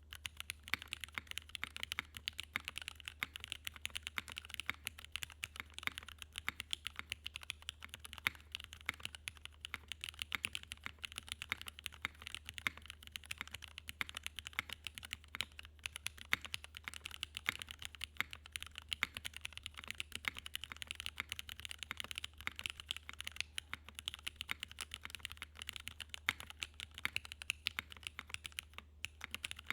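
Typing on a Merisi Sessantacinque 65% mechanical keyboard with retooled Cherry MX Black linear switches mounted on an aluminium plate: a continuous, fast run of keystroke clacks over a low steady hum.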